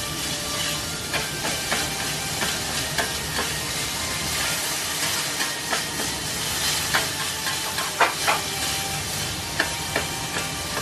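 Yakisoba noodles and toppings frying on a hot flat iron griddle, a steady sizzle with scattered clicks and taps of chopsticks and a spatula on the plate, the sharpest pair about eight seconds in.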